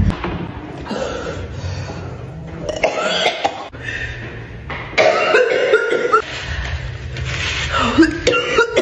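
People coughing in a string of short spliced clips, the sound changing abruptly from one clip to the next.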